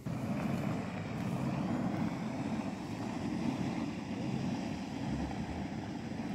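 Off-road vehicle driving along a muddy dirt track: steady engine and road noise, with wind on the microphone.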